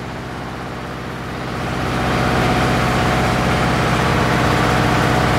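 Steady hum of running factory machinery, with a rushing noise over it that swells about a second and a half in and then holds steady.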